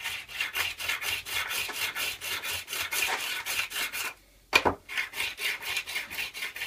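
Steel card scraper edge rubbed quickly back and forth on the fine side of a wet water stone, about five strokes a second, honing the edge square and smooth before a burr is raised. The strokes stop about four seconds in, a single knock follows, then the rubbing resumes.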